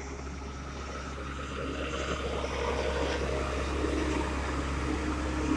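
Dynapac CA302 single smooth-drum roller's diesel engine running steadily as the roller drives past with its drum vibration switched off, on a final compaction pass. The engine note grows steadily louder as the machine comes close.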